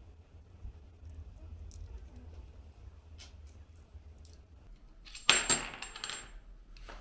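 Small metal water-cooling fittings clinking as they are handled and set down on a table. About five seconds in there is one louder metallic clatter that fades over about a second.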